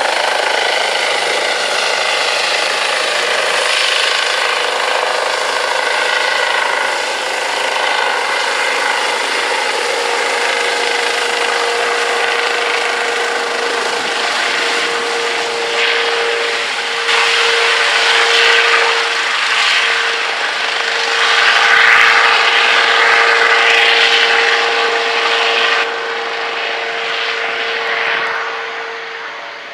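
Airbus (Eurocopter) EC135 helicopter climbing away after take-off: a steady turbine whine over the rotor noise, growing louder for several seconds around the middle as it passes close overhead, then fading as it flies off near the end.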